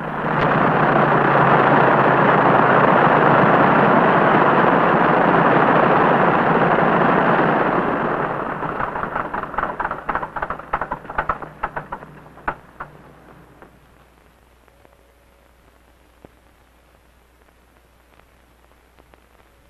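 Single-engine aircraft's engine and propeller running loud and steady close by, then fading out about eight seconds in with scattered pops and crackles, leaving only a faint hum.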